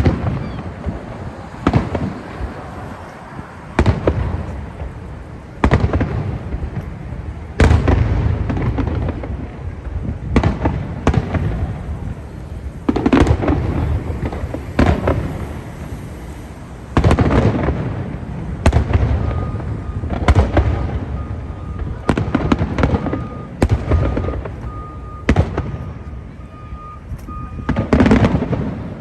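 Fireworks display: aerial shells bursting one after another, sharp bangs every second or two with a rumbling echo between them.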